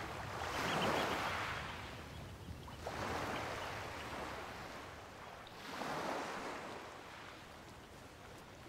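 Small waves washing onto a sandy shore: three soft swells of surf, each rising and fading over about a second, roughly every two and a half to three seconds.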